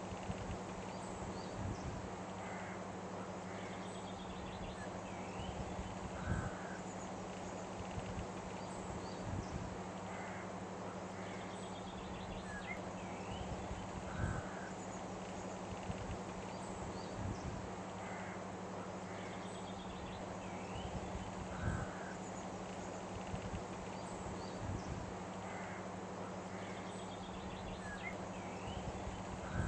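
Outdoor nature ambience: a steady background of noise with a low hum, and short bird calls with fainter chirps that recur in the same pattern about every seven or eight seconds, like a looped recording.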